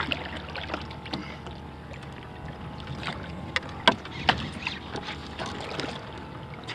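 Small waves lapping against plastic kayak hulls on open sea, with a scatter of sharp knocks and clicks, the two loudest close together about four seconds in.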